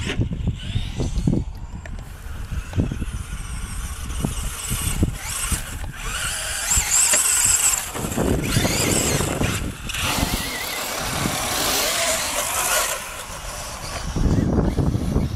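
Brushless electric RC car motors whining as the cars drive on sand, the whine rising and falling in pitch and loudest from about six to thirteen seconds in as a car passes close. A low rumble sits underneath at the start and again near the end.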